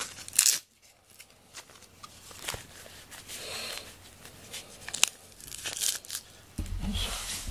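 Handling noise from a rubber pet-grooming glove: scattered rustles, crinkles and clicks, with a sharp crackle about half a second in. A low rumble of camera handling begins near the end.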